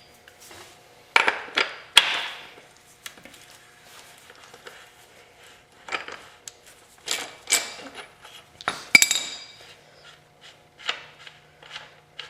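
Metal clinking and light rattling as the rear axle nut, washer and hand tools are handled on a YZ250F motocross bike, with several sharp ringing clinks among quieter taps.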